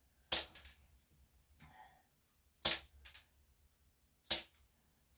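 Plier-style dog nail clippers snipping through toenails: three sharp snaps about a second and a half apart, with fainter clicks after the first two.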